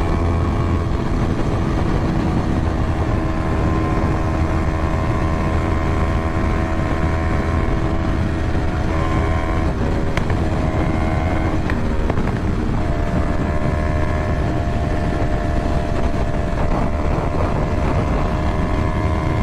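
Sport motorcycle's engine running steadily at highway cruising speed under heavy wind rush. The engine note shifts a few times around the middle, then settles again.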